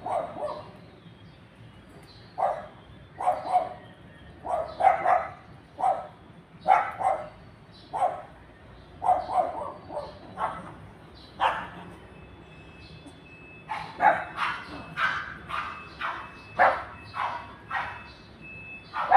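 Small dogs barking in short, sharp yaps, often two in quick succession, with a brief lull partway through and then quicker barking near the end.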